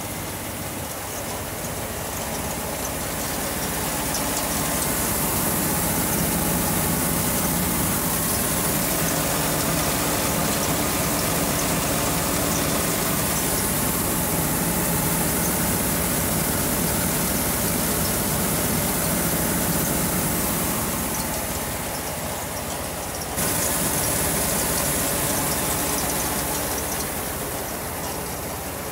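Seed cleaner and grain augers running steadily while linseed is cleaned, a constant machine hum with a hiss over it. The sound jumps abruptly louder about two-thirds of the way through.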